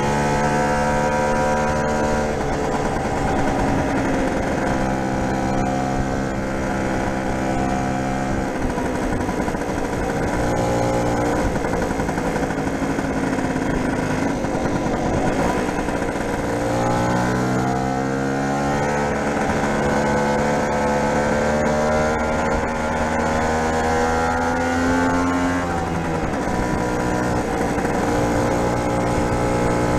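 Lambretta SX200's single-cylinder two-stroke engine running under way after its dyno setup. The engine note drops sharply about 2 and 8 seconds in, climbs steadily from about 17 to 25 seconds as the scooter accelerates, then drops again.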